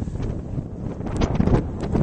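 Storm wind buffeting the microphone in uneven gusts, a low rumble with brief crackling streaks.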